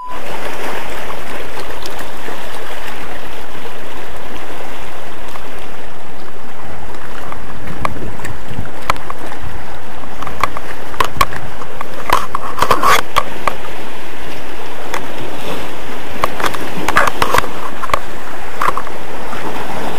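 Loud, steady rush of sea wind and surf, with scattered clicks and knocks from about halfway through.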